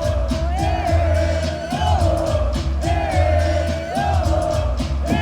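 Loud live concert music through a PA: a wavering melody line that rises and falls about once a second over heavy bass pulses, with crowd noise underneath.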